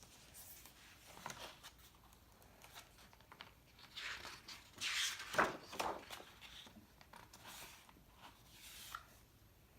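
Faint rustling of paper as a picture book is handled and a page is turned, loudest about four to six seconds in.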